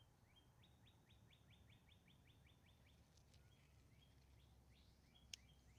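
Faint bird song: a fast trill of about a dozen short rising notes lasting a couple of seconds, followed by a few scattered single notes. A single sharp click sounds near the end.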